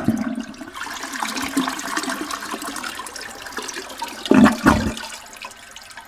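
A toilet flushing: a steady rush of water with gurgling, surging loudest about four and a half seconds in, then draining away more quietly near the end.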